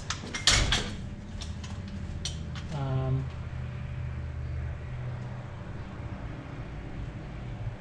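Metal engine parts being handled: a few sharp metallic clinks and knocks, the loudest about half a second in, then lighter taps over the next couple of seconds, over a steady low hum.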